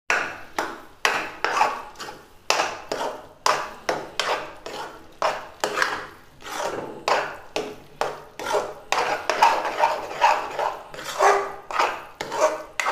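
Metal spatula scraping and knocking against a metal kadhai while stirring milk cream into thick roasted chana dal paste, about two strokes a second, some strokes with a brief metallic ring.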